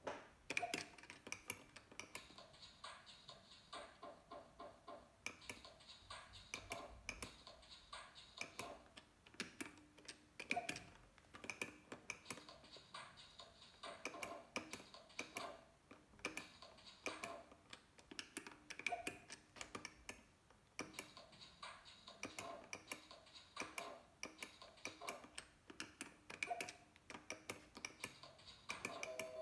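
Orange 17 XXL video slot machine's reel-spin sound, fairly faint: clusters of rapid electronic ticks with short beeping tones, repeating spin after spin.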